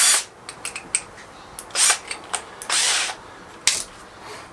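Power drill run in three short bursts, with small clicks and knocks between them, as if driving screws.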